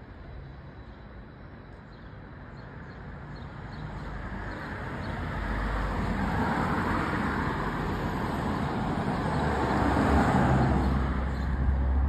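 Road traffic: cars driving past, engine and tyre noise building as a car approaches and passes close, loudest about ten seconds in.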